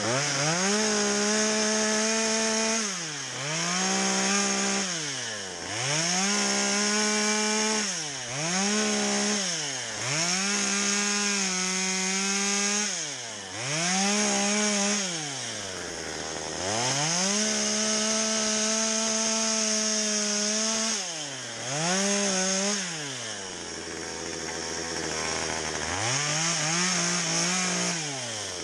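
Stihl two-stroke chainsaw cutting into a spruce log: about eight bursts at full throttle, each held for one to four seconds, with the engine note dropping back toward idle between them and idling for a few seconds about two-thirds of the way through before a last burst near the end.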